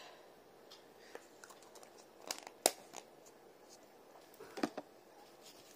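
Takeaway food packaging being handled: light crinkling and scattered clicks, with one sharp click about two and a half seconds in and a short cluster of clicks near the end.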